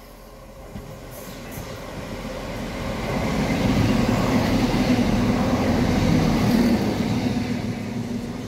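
Electric multiple-unit passenger train running through the station without stopping. A rush of wheels on rail and air swells as it nears, is loudest with a steady low hum as the carriages pass, then begins to fade as it goes away.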